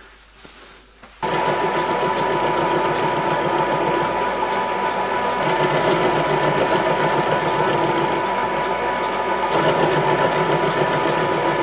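Milling machine running, its end mill cutting a flat across the steam ports of a metal locomotive cylinder block: a steady whining machining noise that starts abruptly about a second in.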